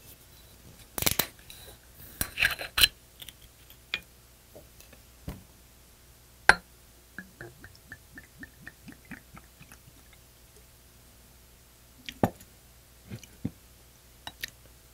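Soju poured from a green glass bottle into a shot glass: a few glass clicks and knocks, then, about seven seconds in, the liquid glugging out of the bottle neck in a quick even run of gurgles, about five a second for some three seconds. A single knock follows as the glass bottle is set down on the table.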